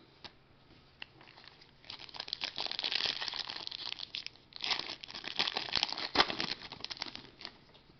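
Foil wrapper of a Prestige football card pack being crinkled and torn open by hand: crackly rustling that starts about two seconds in and comes in two spells.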